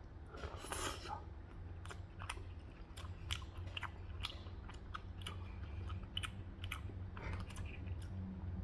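A person chewing food close to the microphone, with soft wet clicks and smacks of the mouth a few times a second, over a steady low hum.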